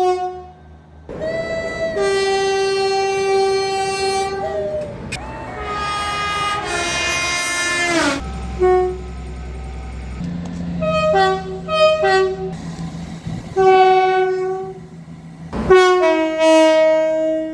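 Train horns sounding in a series of separate clips: two long blasts in the first eight seconds, the second falling in pitch as it ends, then several short blasts and another long blast near the end, with a low rumble under the middle blasts.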